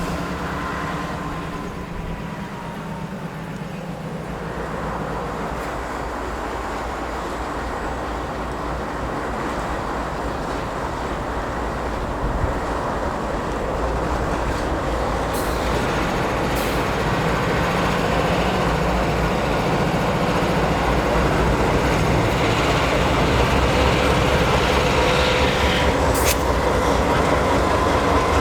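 Freight train running by with a steady low rumble that grows slowly louder.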